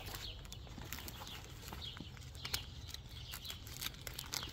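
Clear plastic zip bag crinkling and crackling as it is handled and opened, with a sharper crackle about two and a half seconds in. Small birds chirp in the background.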